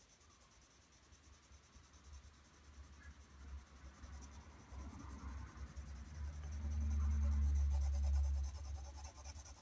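Graphite pencil shading on drawing paper: a soft scratching and rubbing that grows louder from about halfway through and is loudest near the end.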